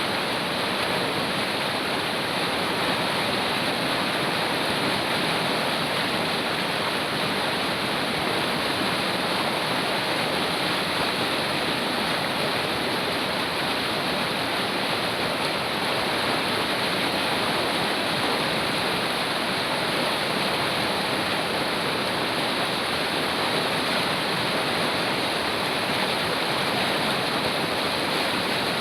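River water rushing over rocks, a steady unbroken roar of flowing water.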